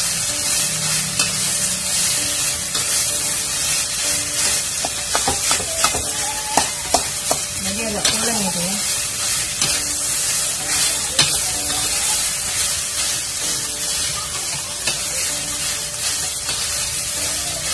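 Rice and egg sizzling as they fry in a wok, stirred and turned with a metal spatula that scrapes against the pan. A run of sharper clacks of the spatula on the wok comes about five to seven seconds in.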